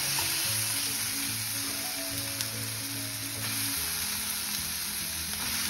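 Onion-tomato masala sizzling as it fries in a kadai, stirred with a slotted spoon, with a steady hiss of hot oil. Soft background music with sustained notes plays under it.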